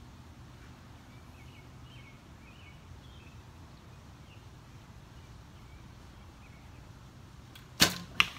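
A recurve bow shot: a loud snap as the string is released near the end, followed about half a second later by a shorter knock as the arrow strikes the foam target. Faint bird chirps earlier on.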